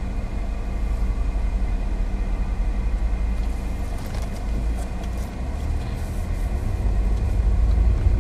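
Road and engine noise inside a moving car's cabin: a steady low rumble that grows louder in the second half.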